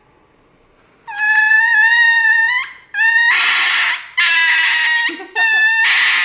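Small dog screaming as it is given an injection: four long, high-pitched cries starting about a second in, each wavering in pitch, with short breaks between.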